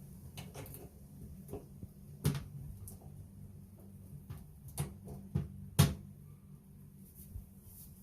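Plastic toilet seat and its hinge bolts being set down onto a porcelain toilet bowl: a few sharp knocks and clicks of plastic against porcelain, the loudest about six seconds in, over a low steady hum.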